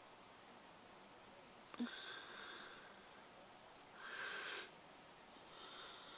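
Faint breathing close to the microphone: two soft, hissy exhales, one about two seconds in and a stronger one about four seconds in, with a small click just before the first.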